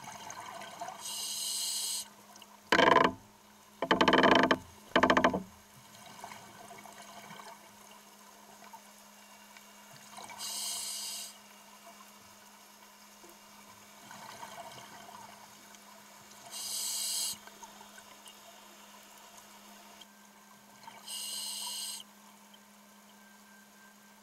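Scuba diver breathing through a regulator, heard underwater. There are four hissing inhalations several seconds apart, and three loud rushing bursts of exhaled bubbles a few seconds in. A faint steady low hum runs underneath.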